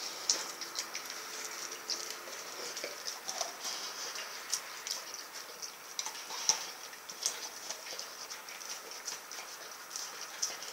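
Rottweiler gnawing and licking at a whole frozen raw turkey: irregular small clicks, crackles and crunches of teeth working at the meat and bone.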